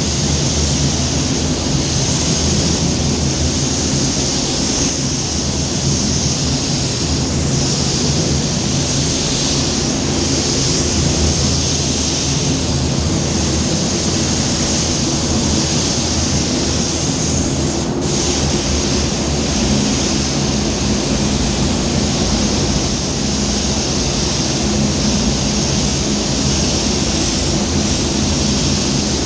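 Paint spray gun hissing steadily as it lays on waterborne basecoat, the air hiss swelling and easing slightly with the passes and breaking off for an instant about eighteen seconds in. A steady low machine hum runs underneath.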